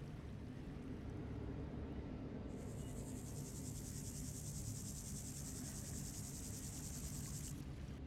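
Grasshopper stridulating, rubbing its hind leg against its wing: a high, finely pulsed buzzing song begins about two and a half seconds in, lasts about five seconds and stops abruptly, over a steady low background rumble.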